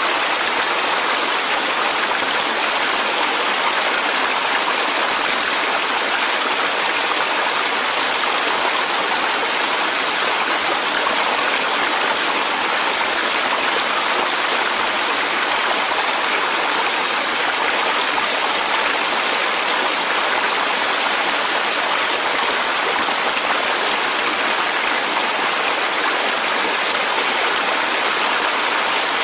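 Clear mountain stream running over rocks: a steady, even rush of flowing water.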